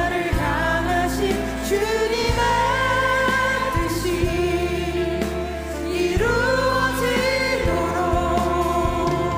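Live contemporary worship music: several voices sing a Korean praise song in long held lines, backed by a band with steady bass and drums.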